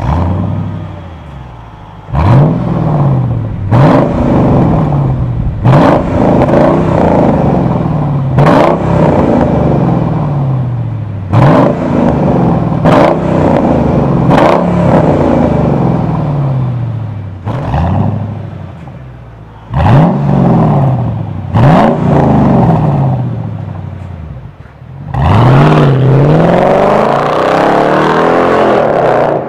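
Mercedes-Benz W211 E55 AMG's supercharged V8 through a MEC Design aftermarket exhaust, idling and blipped about a dozen times while standing, each rev rising sharply and falling back to idle. Near the end the car pulls away hard and the engine note climbs steadily.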